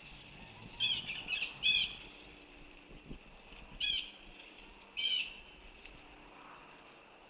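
Bald eagle giving high, chirping calls: a quick run of several calls about a second in, then two single calls near four and five seconds in.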